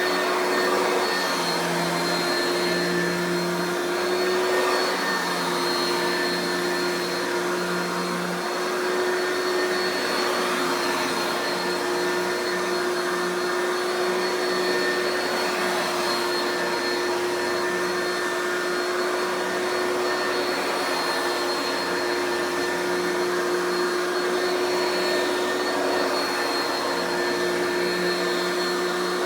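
Oreck XL2 Ultra lightweight upright vacuum running steadily: a constant motor hum with a steady high whine over it.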